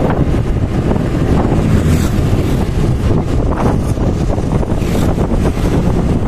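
Steady rush of wind buffeting the microphone of a motor scooter riding along a street, with the scooter's engine and road noise mixed in underneath.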